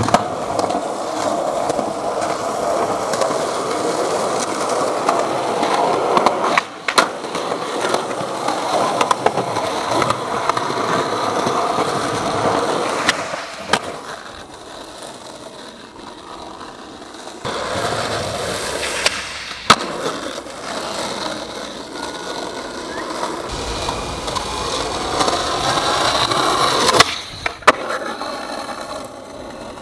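Skateboard wheels rolling over rough concrete, with several sharp clacks of the board hitting the ground. The rolling noise shifts in loudness and character from clip to clip.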